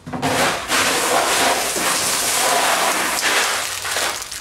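A dense, continuous rattle of many small tumbled stones and crystal chips pouring and tumbling against one another, starting suddenly.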